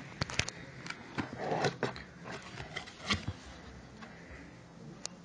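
Cardboard box and packaging being handled: scattered clicks and taps with a brief rustle about a second and a half in.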